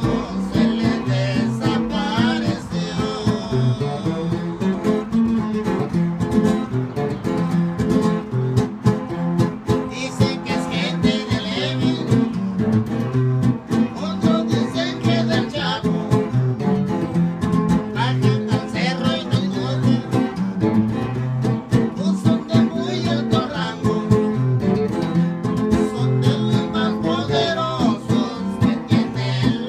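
Acoustic-electric guitar strummed continuously in a steady rhythm, played through a loudspeaker.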